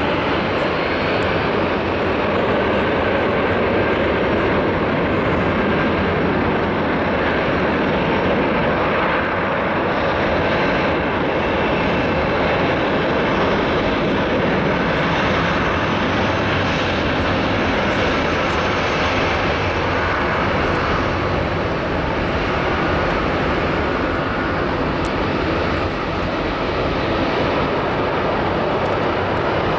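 Twin jet engines of an Airbus A319-100 airliner running at high thrust on the takeoff roll: a steady, loud jet noise that holds level throughout.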